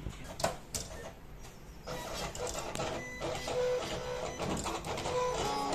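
Silhouette Cameo 4 vinyl-cutting plotter at work. A couple of clicks come first, then from about two seconds in its motors whir in short stepped tones that keep changing pitch as the carriage and rollers move the vinyl sheet.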